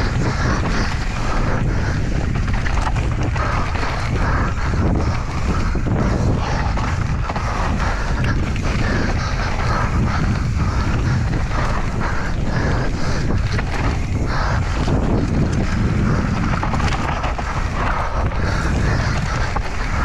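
Wind buffeting the camera microphone and tyres rolling over a dirt trail as an enduro mountain bike rides downhill, with frequent quick knocks and rattles from the bike throughout.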